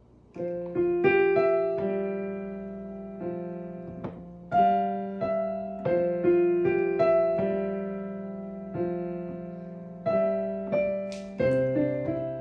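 Digital piano played slowly, starting about half a second in: held chords under a simple melody, each struck note ringing and slowly fading.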